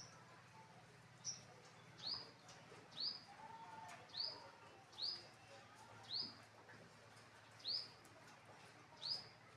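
A bird calling repeatedly: short, high chirps, each sliding down in pitch, about once a second, nine in all.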